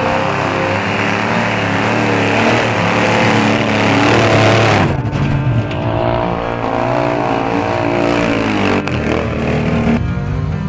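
Off-road 4x4 engine revving under load, its pitch rising and falling. The sound changes abruptly about halfway through, losing its hiss.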